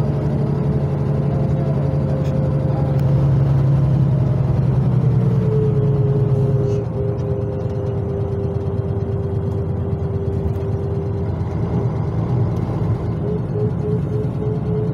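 Karosa LC735 coach's diesel engine and drivetrain running under way, heard from inside the bus, with a steady whine over the engine note. The engine note drops to a quieter level about seven seconds in.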